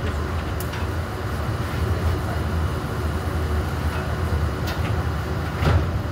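Steady low rumble of machinery or wind, with a few short metallic knocks as a sheet-metal electrical panel enclosure is tipped and shuffled across the roof, the loudest knock near the end as it is set upright.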